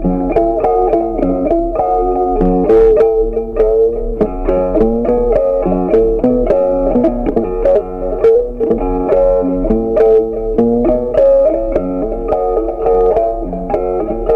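Background instrumental music led by a plucked guitar, playing a quick, steady run of notes.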